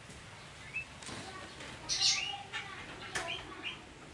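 A baby long-tailed macaque giving short high squeaks and chirps, some gliding up or down in pitch, the loudest about halfway through. A few sharp clicks fall between the calls.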